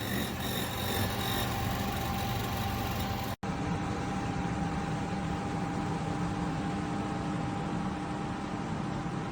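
Portable air conditioner running steadily: a constant fan rush with a hum, briefly cut off about three seconds in.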